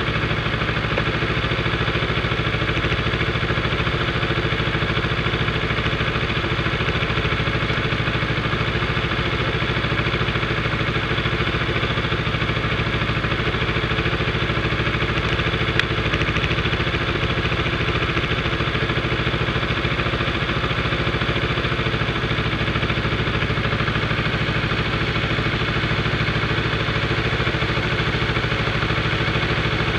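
Motorcycle engine idling steadily while the bike stands still, with one brief click about halfway through.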